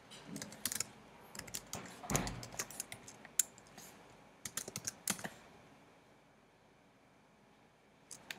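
Typing on a computer keyboard: a quick run of key clicks for about the first five seconds, then a lull of about three seconds, with keystrokes starting again at the very end.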